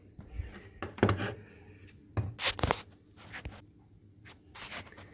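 Handling noise: a scatter of soft knocks, taps and rubbing as hands move the camera and a soldering gun and meter on a workbench.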